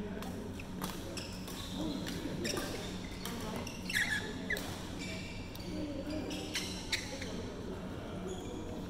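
Badminton rally on an indoor court: sharp cracks of rackets striking the shuttlecock, spaced irregularly about a second apart, with brief shoe squeaks on the court floor about four seconds in. Voices from other courts echo in the hall over a steady low hum.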